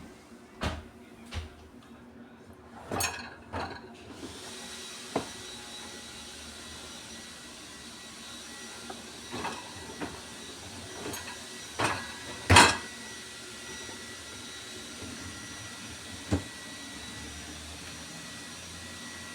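A dishwasher running: a steady hiss of water with faint high whining tones that starts about four seconds in. A few knocks and clatters come before and over it, the loudest about two-thirds of the way through.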